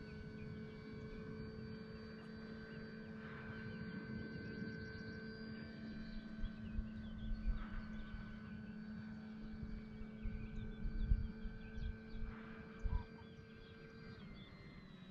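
Steady thin whine of an E-flite Carbon-Z Cessna 150T RC plane's electric motor and propeller flying far off, its pitch stepping down slightly near the end. Low rumbling thumps of wind on the microphone come and go through the second half.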